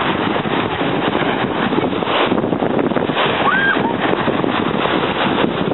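Wind buffeting the microphone over small waves washing onto a pebble beach, a steady rushing noise.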